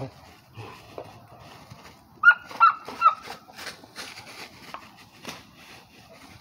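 A dog tugging on a springpole tyre lets out a few short, high whines about two seconds in, over the rustle of dry leaves and knocks as it jumps and lands.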